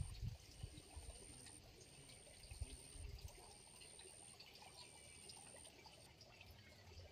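Faint trickling water, with a thin high tone that stops and starts about once a second and a few low bumps.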